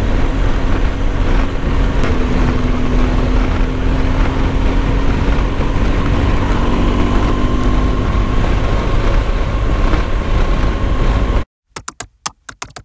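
Motorcycle running at road speed, its steady engine note under heavy wind rush on the microphone, the pitch creeping up a little as it speeds up. Near the end it cuts off suddenly and gives way to a fast run of typing clicks.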